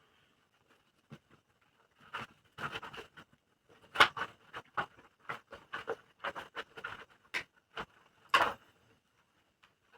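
Helmet liner padding being handled and pressed back into the helmet: a run of short, irregular rubbing and scraping sounds.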